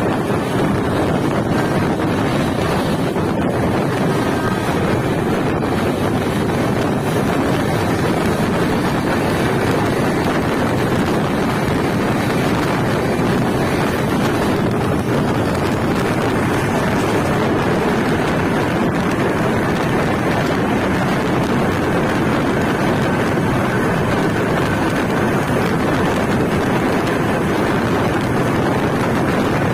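Steady rush of a passenger train running at speed, heard from its open door: wheels on the rails and wind buffeting the microphone.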